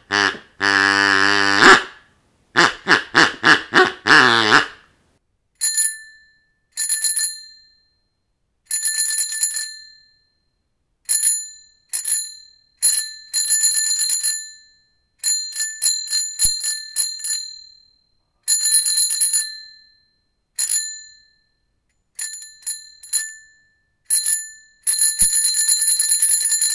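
A bicycle bell rung over and over, in single dings and quick trills with short gaps between them. The first few seconds hold a different sound: short pitched sounds repeated quickly.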